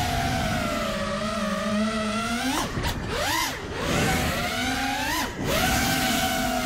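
5-inch four-cell FPV quadcopter's brushless motors and propellers whining in flight. The pitch holds, then rises and falls sharply a couple of times as the throttle is punched and chopped.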